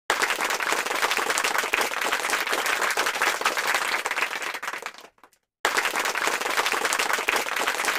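Applause: a dense, even patter of many hands clapping that fades out about five seconds in, stops for half a second, then starts again at full strength.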